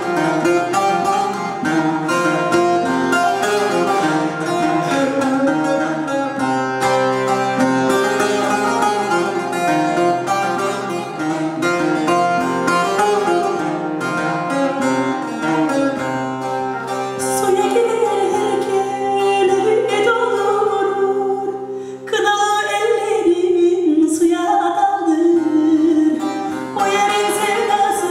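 Bağlama (long-necked Turkish saz) played solo in quick plucked melodic runs, joined by a woman's singing voice a little past halfway.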